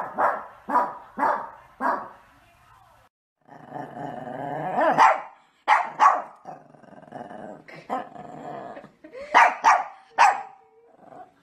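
A dog barking in bursts: several quick barks at the start, a longer drawn-out call rising in pitch around the middle, then more barks near the end.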